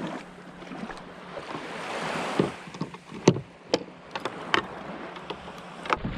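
Water sloshing and lapping around a small wooden sailing kayak in shallow water, with a series of sharp knocks and splashes starting about two seconds in.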